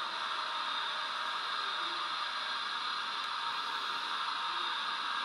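Steady hiss of simulated steam from the Loksound sound decoder in an Oxford Rail Dean Goods model locomotive standing still, played through its small onboard speaker.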